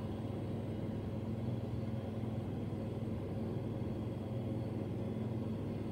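Steady low rumble of a car idling, heard from inside the cabin, with a faint even hum.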